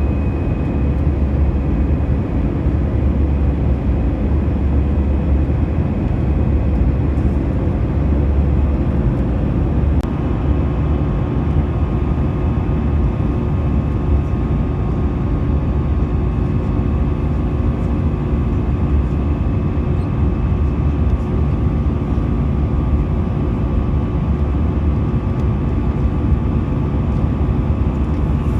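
Steady cabin noise inside an Airbus A320: an even low rumble of the engines and airflow with faint steady hums, and a slightly higher hum joining about ten seconds in.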